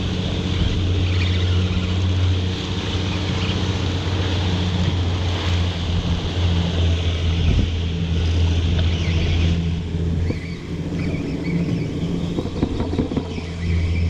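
Boat engine running steadily with a low hum, under a hiss of wind and water that drops off about two-thirds of the way through.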